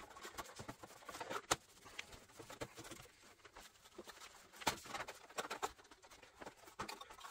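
Faint, scattered light clicks and taps, a few at a time, like small parts being handled.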